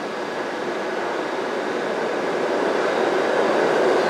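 New York City subway train noise in an underground station, a steady rushing hum that grows gradually louder, with a faint thin whine under it at first.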